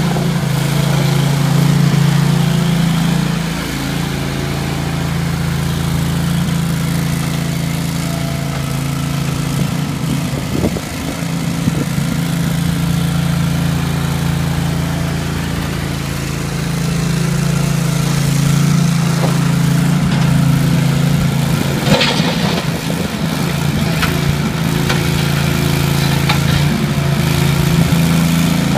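Ramrod 750A mini skid loader's engine running steadily while the machine is driven with a loaded bucket, its level dipping a little at times. A few sharp knocks come about two-thirds of the way through.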